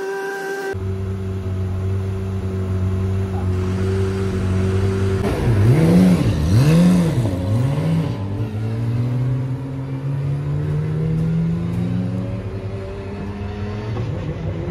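Porsche 911 GT3 Cup race car's flat-six engine, running at idle from about a second in. It is blipped three times, rising and falling quickly, then pulls away with its note slowly rising before it drops back near the end.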